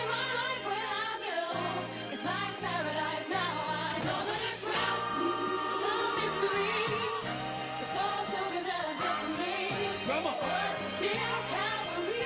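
Background music: a gospel-style song with a singing voice over a steady bass line.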